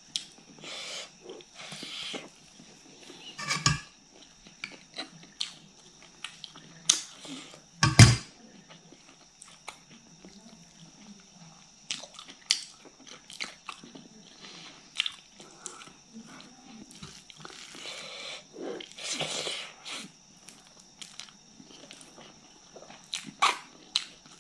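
Close-up eating sounds: wet chewing and lip smacking as rice and fish curry are eaten by hand, with many short clicks and a thump about eight seconds in. A faint steady high whine runs underneath.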